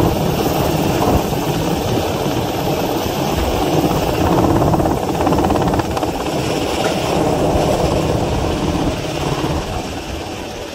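Helicopter hovering overhead with a long line slung beneath it, its rotor beating steadily. The sound eases slightly near the end.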